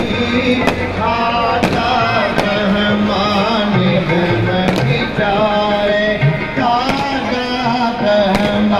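Sikh devotional singing (kirtan) with tabla accompaniment: a melodic voice over a steady drone, with sharp tabla strokes throughout.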